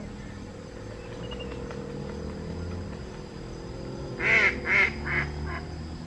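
A bird in the waterbird colony calling four times in quick succession about four seconds in, the first two calls the loudest, over a steady low hum.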